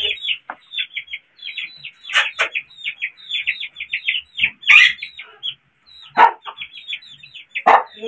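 Chickens clucking among a flock of cage birds giving rapid, high chirps, several a second, with a few louder calls standing out.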